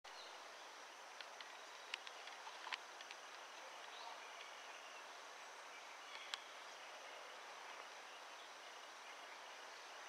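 Faint outdoor ambience: a steady hiss with a faint high insect drone, broken by a few short sharp clicks or ticks in the first few seconds and one more after about six seconds.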